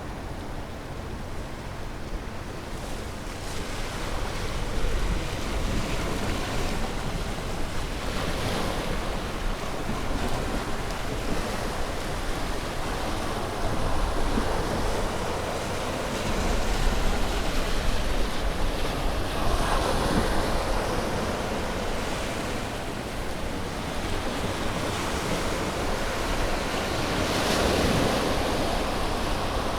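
Ocean waves breaking on a shore, a continuous surf wash that swells as each wave breaks, several times over, with a low rumble of wind on the microphone.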